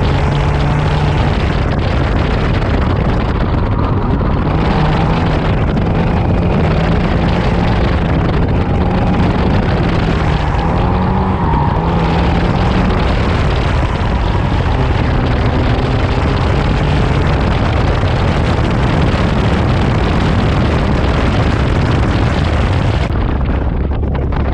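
Nissan 240SX (S14) KA24DE four-cylinder engine driven hard through an autocross run, heard from inside the cabin, its note rising and falling as the driver accelerates and lifts, under steady wind and tyre noise. The high rushing noise eases about a second before the end.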